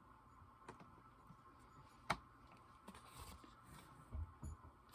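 Faint handling of small cosmetic items and packaging: a few light clicks, one sharper click about two seconds in, then soft rustling and a couple of dull knocks near the end.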